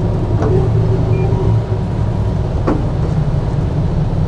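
Steady low rumble of a Sunseeker 76 motor yacht's diesel engines ticking over, one engine in astern to drag the stern in toward the dock.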